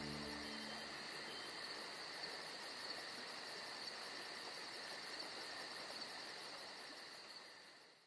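Faint, steady chorus of insects chirping in rapid, even pulses, with the last held notes of music dying away in the first second. The chorus fades out near the end.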